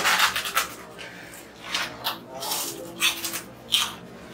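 Crisp potato chips crunching as they are chewed and nosed about in the bowls without hands, in several short crackly bursts: one right at the start, then more around the middle and just before the end.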